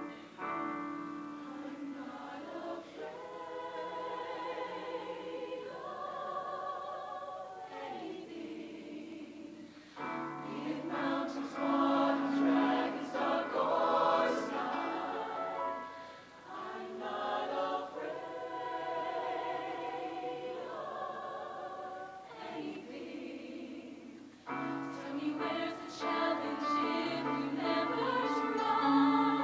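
Mixed high school show choir singing in harmony, in several held phrases with short breaks between them, loudest in the middle and near the end.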